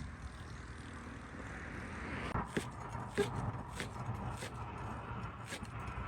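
Steady low rumble of wind on the microphone. From about two seconds in comes an irregular run of sharp clicks and snaps, about eight in all.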